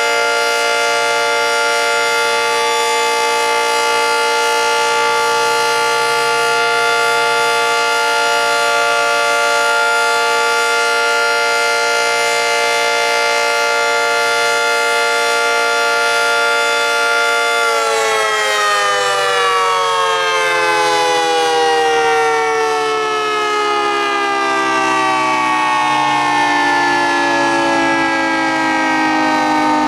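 Early-1960s Federal Signal 2T22 dual-tone outdoor warning siren sounding a loud steady chord at full speed. About 18 seconds in its power cuts and it winds down, the chord's pitch falling slowly and smoothly.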